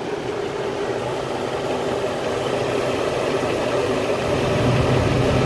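Old truck's engine idling steadily with no belt squeal, its drive belt dusted with baking soda to quiet the squeal. The low hum grows a little stronger about four seconds in.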